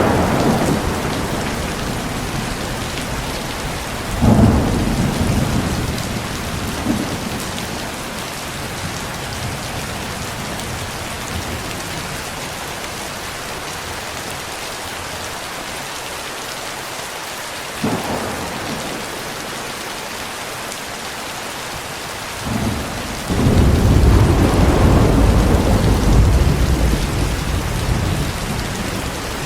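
Steady rain with thunder: a thunderclap right at the start, another about four seconds in, a sharp crack near eighteen seconds, then a long rolling rumble of thunder near the end.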